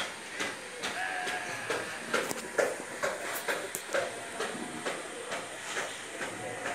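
Farmyard ambience: brief, scattered animal calls and irregular clicks and taps over a faint steady hiss.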